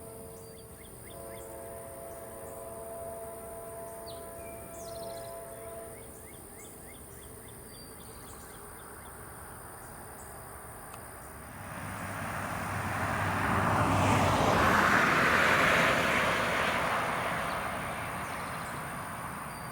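A vehicle passes close by, its noise swelling to a peak and then fading over about eight seconds, starting a little past halfway in.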